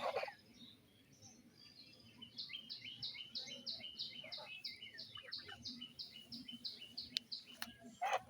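A small bird singing a fast run of evenly repeated high chirps, about four a second for some five seconds. Domestic geese honk at the very start and again near the end.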